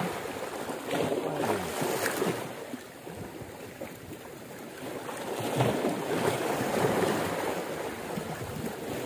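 Sea waves washing against shore rocks, swelling louder about a second in and again past the middle.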